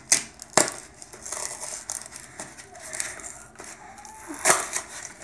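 A Pokémon TCG booster pack's foil wrapper being torn open and crinkled by hand, with sharp rips at the start and again about four and a half seconds in.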